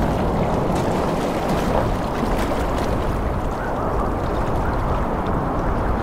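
Ocean surf breaking and washing up a beach: a steady rushing wash of water with a low rumble underneath.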